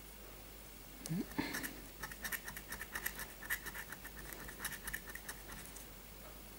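A copper coin scratching the coating off a bingo scratch card in a rapid run of short strokes, starting about a second in and stopping near the end.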